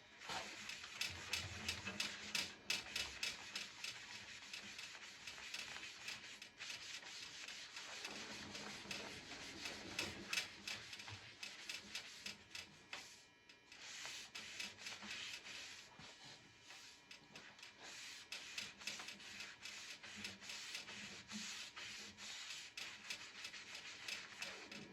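A cloth rubbed briskly back and forth over a metal table saw top, buffing in candle wax, in quick repeated strokes with two short pauses.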